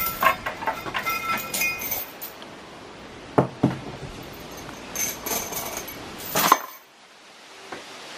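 Metal chain and weight plate of a weighted dip belt clinking and jingling as they are handled, in two spells, with two sharp knocks about three and a half seconds in.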